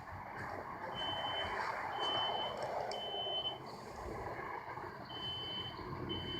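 Building fire alarm sounding a steady high-pitched beep in the temporal-three evacuation pattern: three beeps about a second apart, a pause of about a second and a half, then the next round of beeps begins. Steady background noise runs underneath.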